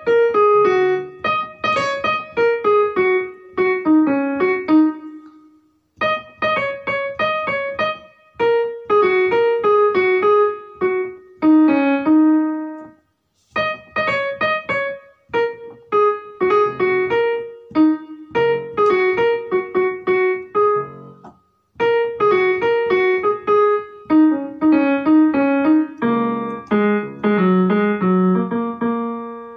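Background music: a piano melody of plucked-sounding notes in short repeating phrases, with brief pauses between them.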